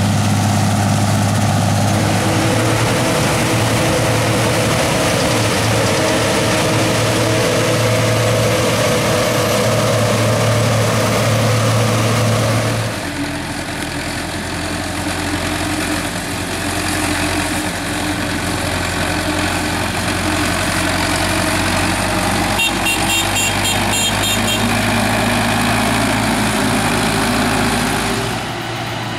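Heavy diesel engines of harvest machinery running steadily. The engine note and level change suddenly about a third of the way in. A short, higher pulsing sound comes about two-thirds of the way through.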